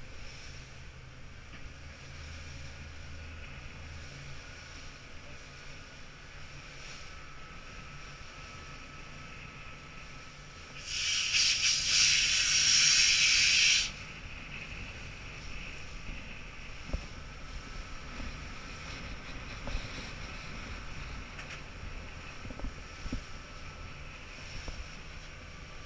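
Motorboat running over open sea: a steady rush of wind and water past the hull, with a loud hiss lasting about three seconds around the middle.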